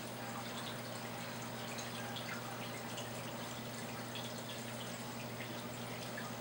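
Reef aquarium water circulation: steady trickling and bubbling with many small drips and pops, over a steady low hum.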